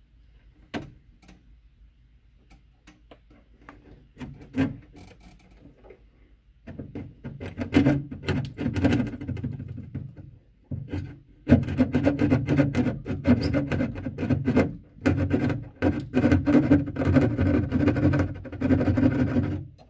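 Hand drywall saw cutting through a plaster-skimmed drywall ceiling: a few light knocks at first, then rasping back-and-forth strokes from about a third of the way in until near the end, with a couple of short pauses.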